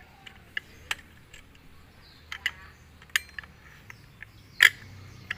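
Irregular sharp metal clicks and clinks from the tool and mounting hardware as the nut holding a brush-cutter blade is tightened by hand, the loudest click a little before the end.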